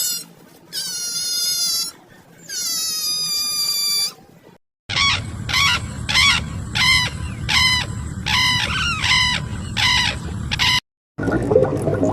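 Animal calls: first two long, drawn-out cries that fall slightly in pitch, then after a cut a quick run of short, chirping calls, about two a second.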